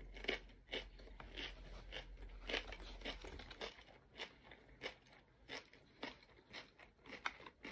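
Close-up chewing of a crispy fried spring roll: soft, irregular crunches, about one or two a second, growing sparser in the second half.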